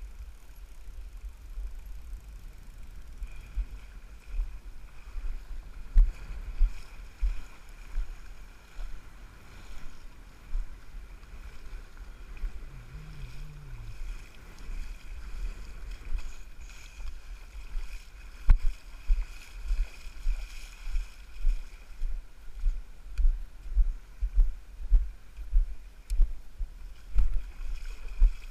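Choppy water slapping and lapping against a kayak's hull as it moves toward shore, in low, uneven thumps that grow steadier and stronger in the second half.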